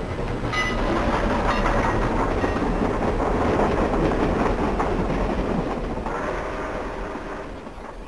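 A train passes by. A short whistle blast sounds about half a second in, then the rumble and clatter of the wheels swells to a peak and fades away.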